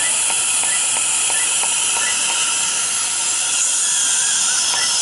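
Er:YAG laser treatment unit in use: a steady hiss with faint regular ticks about three times a second.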